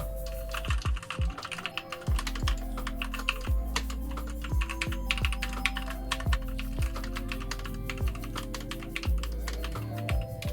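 Rapid typing on a RAKK Lam-Ang Lite mechanical keyboard with linear red switches, a dense, uneven run of key clicks and clacks.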